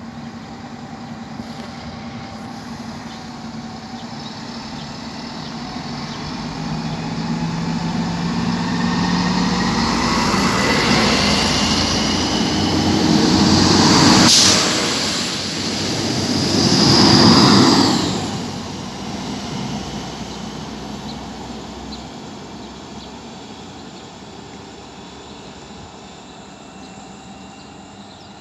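Diesel multiple unit of Regio-Shuttle type (DB Class 650) running past close by, its engine and transmission whine rising in pitch as it picks up speed. It is loudest in two surges about fourteen and seventeen seconds in, with a sharp click of the wheels at the first, then it fades away down the line.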